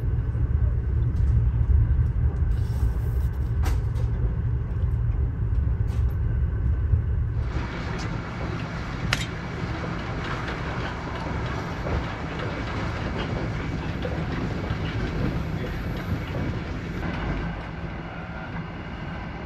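Sleeper train running along the track, heard from inside the carriage: a steady low rumble with a few sharp clicks. About seven seconds in the sound turns brighter, with more hiss over the rumble.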